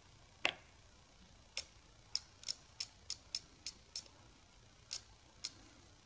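About eleven small, sharp clicks at uneven spacing, the loudest about half a second in, as screwdrivers work inside an opened laptop hard drive: one turns the platter spindle backwards while the other pushes the stuck read/write head arm back toward its parking position.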